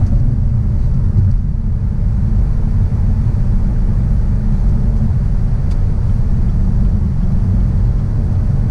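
Inside a 2020 Chevrolet Camaro SS cruising at highway speed: a steady low rumble of the 6.2-litre V8 and tyre noise, with no revving.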